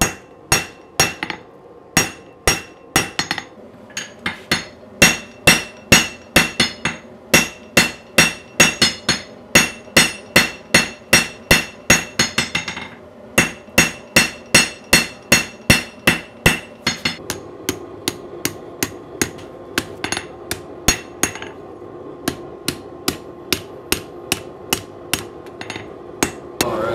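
Hand hammer forging a red-hot damascus san-mai knife blade on a steel anvil. The blows come at a steady two to three a second, each with a bright metallic ring. There is a short pause about 13 seconds in, and the blows are lighter in the later part.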